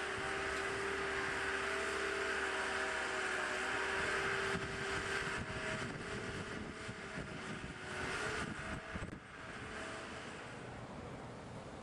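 Boatyard travel lift's engine running with a steady whine as it carries a salmon seiner; the sound drops away about nine seconds in.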